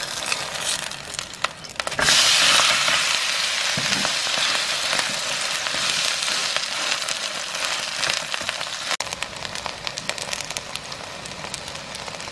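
Garlic-chive and shrimp pancake batter frying in oil in a frying pan: a steady sizzle full of small crackles. It gets louder about two seconds in and drops a little after a sudden break near the end.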